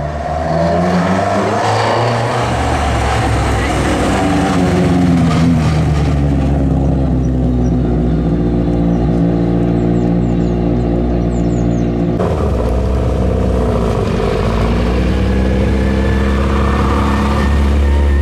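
Fiat 131 Abarth rally car's engine running and revving as it pulls away and climbs through the revs, easing off again. After an abrupt cut, a BMW E30 rally car's engine runs, dips briefly, then revs up louder near the end.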